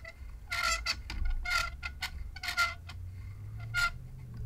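Short squeaks about once a second as a microphone clip is turned onto the threaded end of a boom arm, each squeak brief and steady in pitch.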